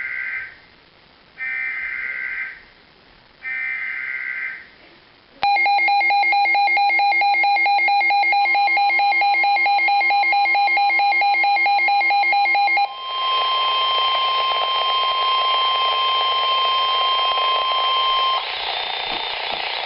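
Emergency Alert System header: three short bursts of warbling data tones. A loud, rapidly pulsing alert made of several pitches follows, with a steady single-pitch Weather Radio alert tone joining it. The pulsing gives way to static hiss under the steady tone, which cuts off suddenly near the end.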